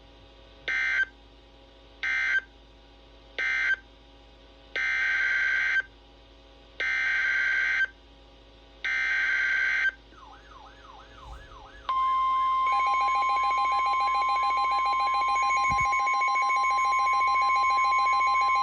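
NOAA Weather Radio Emergency Alert System data bursts: three short end-of-message bursts closing one Flood Warning, then three longer SAME header bursts opening the next. At about twelve seconds in, the steady 1050-hertz warning alarm tone starts and runs on, with a fainter repeating warble beneath it.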